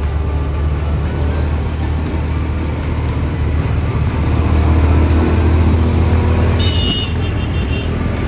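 Auto-rickshaw running at speed, its engine drone mixed with road and wind noise, heard from inside the open cab. A few short high beeps come near the end.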